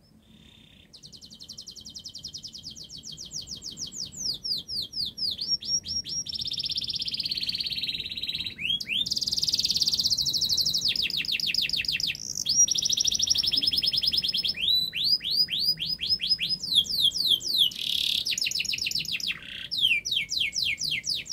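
Domestic canary in full song: a long unbroken song of fast trills, each a run of quickly repeated sweeping notes, switching to a new trill every second or two. It starts about a second in and cuts off abruptly at the end.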